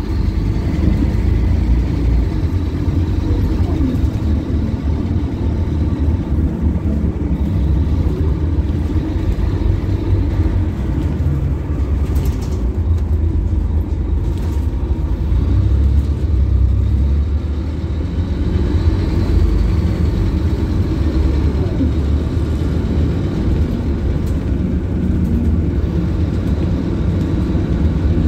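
Inside the passenger cabin of a Scania K280UB bus, its Scania DC9 diesel engine running with a steady low drone. A couple of sharp clicks or rattles come about twelve and fourteen seconds in.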